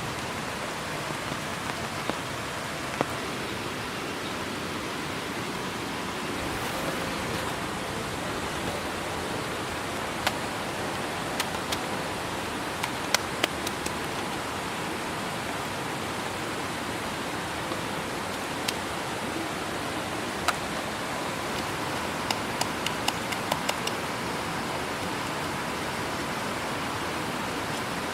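Steady heavy rain falling, with scattered sharp ticks on top: a cluster in the middle and another near the end.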